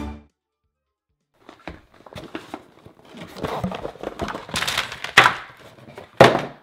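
Packaged fishing baits tipped out of a cardboard subscription tackle box onto a table: a run of light clatters and packaging rustles, then two sharp thunks near the end as the box and its contents hit the tabletop.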